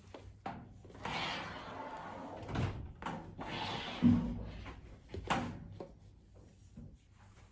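Household handling sounds: two stretches of rubbing or rustling noise, each about a second long, with a few sharp clicks and a single low knock about four seconds in, like a cupboard door or drawer being shut.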